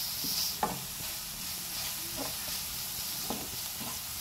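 Chopped onion and green chilli sizzling in oil and butter in a frying pan, with a few strokes of a wooden spatula stirring and scraping through them.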